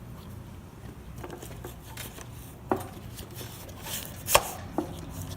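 Metal parts of a string trimmer's shaft assembly clinking and knocking as they are handled and fitted together by hand: a few sharp taps, the loudest about four seconds in, over a steady low hum.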